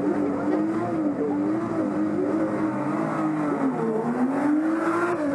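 Rally car engine held at high revs on the start line, its pitch wavering up and down, dipping and climbing again about four seconds in as the car rolls forward.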